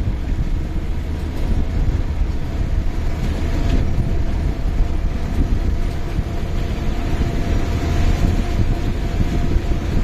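A vehicle driving on a wet, rough dirt road, heard from its open side window: a steady low rumble of engine, tyres and wind, with a faint steady whine above it.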